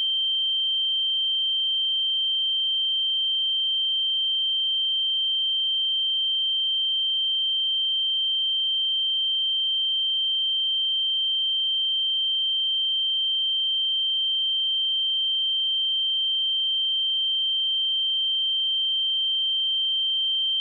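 Steady pure sine-wave test tone at 3136 Hz, a single high-pitched note held at constant level.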